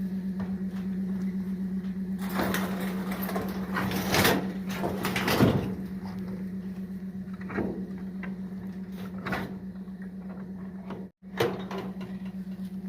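Knocks and bangs of a car's doors and boot being handled and shut, over a steady low hum. The loudest bang comes about five and a half seconds in.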